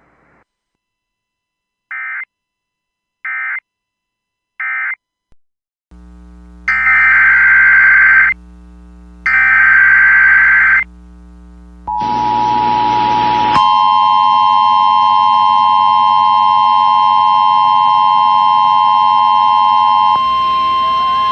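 Emergency Alert System audio. It opens with three short digital data bursts, the end-of-message code. After a pause come two longer data bursts of about a second and a half each, the start of the next alert's header, over a faint steady hum. Then a steady electronic attention tone begins past the middle and soon thickens into a harsher chord of several steady tones that holds to the end.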